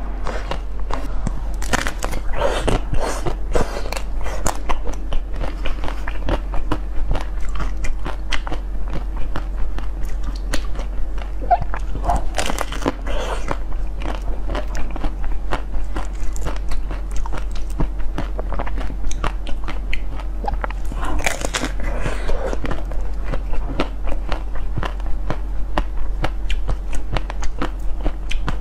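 Close-miked biting and crunching of hard frozen ice treats: many sharp, crisp cracks in quick succession, in heavier clusters now and then. A steady low hum runs underneath.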